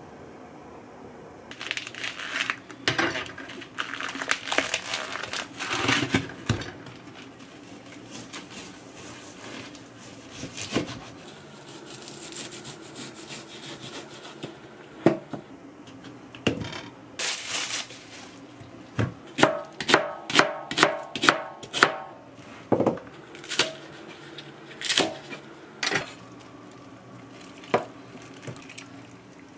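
Kitchen prep sounds: a knife cutting a block of raw pork on a plastic cutting board, with a quick run of sharp knocks about two a second in the middle and scattered clatter of utensils and cookware.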